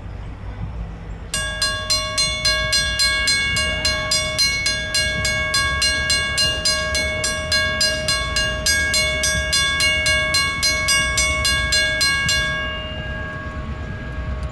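Grade-crossing signal bell ringing rapidly, about four strokes a second; it starts suddenly a little over a second in and stops about 12 seconds in, ringing out briefly. Underneath, the low rumble of the approaching diesel locomotives runs throughout.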